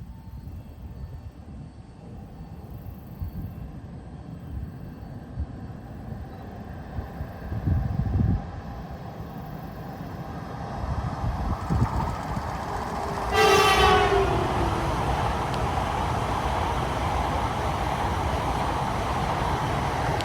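H5 series Hokkaido Shinkansen train approaching and passing, its rushing noise building about halfway through. It sounds its horn once, a blast of about a second that dips slightly in pitch, then the steady rush of the passing train carries on.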